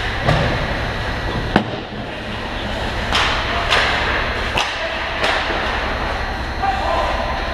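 Ice hockey play: sharp clacks and scrapes of sticks, puck and skates on the ice, about six in a few seconds, the loudest about one and a half seconds in. A steady low rink hum runs underneath.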